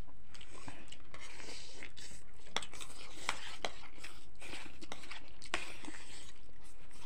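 Two people eating instant noodles: scattered slurps and chewing, with forks clicking on plates, over a steady low background hum.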